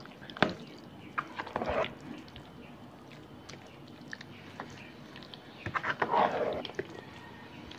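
Creamy chicken salad filling being stirred in a bowl: wet squelching in two short spells, about a second and a half in and again around six seconds, with a sharp tap about half a second in.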